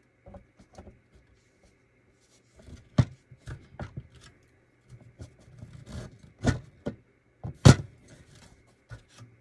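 Hard plastic pieces of a Calico Critters grocery market playset knocking and clicking as the store frame is pushed down into the notches of its floor piece, with one side refusing to seat. A series of sharp separate knocks, the loudest about three seconds in and near eight seconds in, with fainter rubbing and handling noise between.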